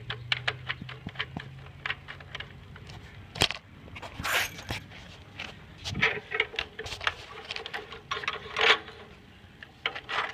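Hard plastic parts of a Nerf blaster being handled: irregular clicks, knocks and rattles, with a couple of louder scrapes about four seconds in and again near the end.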